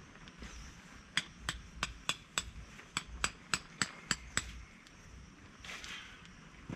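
About a dozen sharp knocks in a steady run of roughly three a second, like repeated hammering or chopping strikes, each with a slight ring.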